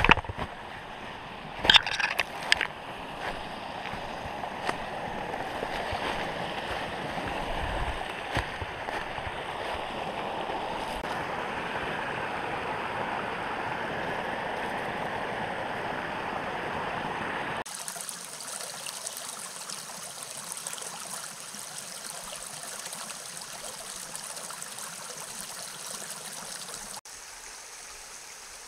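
A small rocky creek running and gurgling over rocks in a steady rush, with a few short loud noises about two seconds in. About two-thirds of the way through the water sound shifts abruptly to a thinner, higher hiss.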